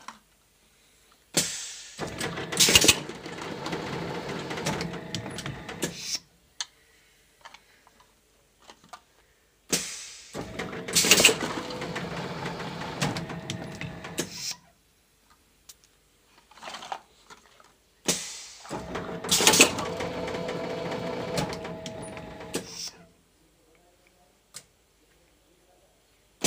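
Plastic-bottle blow moulding machine cycling three times, about eight seconds apart. Each cycle opens with a sharp clack as the steel mould moves, then a steady hiss of blowing air for about four seconds that cuts off, with only small clicks between cycles.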